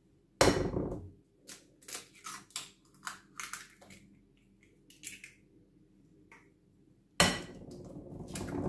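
Two eggs cracked against the rim of a glass mixing bowl: a sharp crack about half a second in, small shell clicks and taps as the first is pulled open, then a longer crackle of the second egg breaking near the end.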